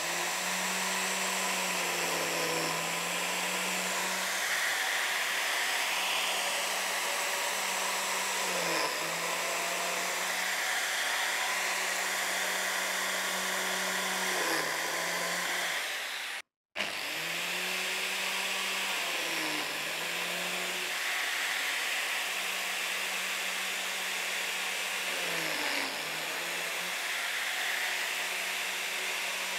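Electric biscuit joiner running steadily with a high whine while cutting slots for 20 mm biscuits in the edge of a wooden board. Its motor note dips briefly every few seconds as the blade plunges into the wood. The sound breaks off for an instant just past halfway.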